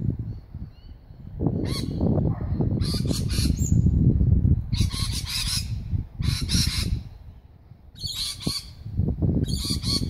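Parrots in the trees giving about six harsh, scolding squawks, each about half a second long and roughly a second apart, over a low rumble.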